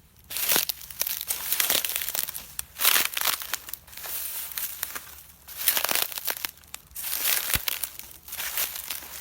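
Irregular crinkling and crunching rustles, coming in uneven bursts with a few sharp clicks.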